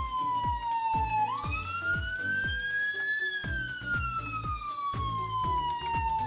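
Ambulance siren wailing slowly. Its pitch falls, rises over about two seconds, then falls again, and it cuts off suddenly at the end. Background music with a steady beat plays underneath.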